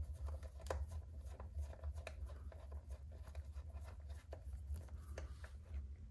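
Light, scattered clicks and rattles of small plastic RC car parts being handled and fitted by hand, over a low steady hum.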